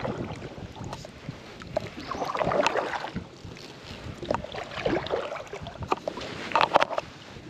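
Kayak paddle strokes through lake water: a swell of splashing about every two seconds, with a few light clicks between.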